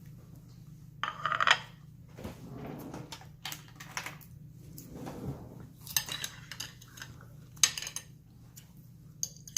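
Dishes and cutlery clinking and clattering in irregular sharp knocks, the loudest cluster about a second and a half in, with single strong clinks about six and seven and a half seconds in, over a faint steady low hum.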